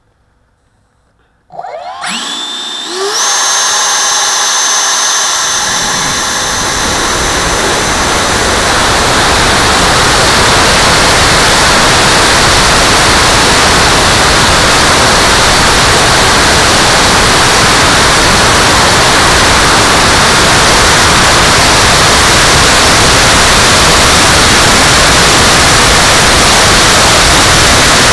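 The electric ducted fan of an RC jet spools up about a second and a half in, a rising whine that settles into a steady high whine. A few seconds later it turns into a loud, even rush of fan and air as the jet flies, heard from a camera on its nose.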